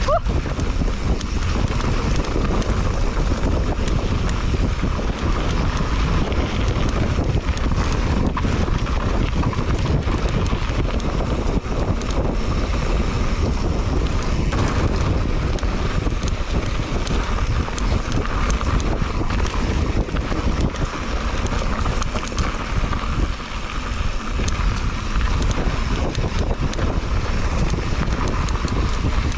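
Wind buffeting the microphone of a handlebar-mounted action camera on a mountain bike riding downhill on a dirt trail, with tyre noise and many small knocks and rattles from the bike over bumps.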